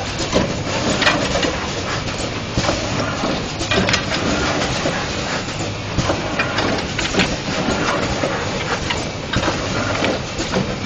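LH 200 automatic screen printing machine running: a steady mechanical clatter with frequent sharp clicks and knocks from its moving stations and bottle conveyor.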